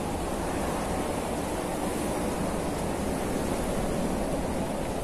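Steady rush of a fast-flowing river churning over shallows. It is an even, unbroken noise, strongest in the low and middle range.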